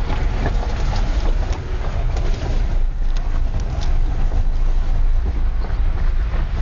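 Car driving on a loose gravel road, heard from inside the cabin: a steady deep rumble of tyres and engine with scattered crackles of stones under the tyres.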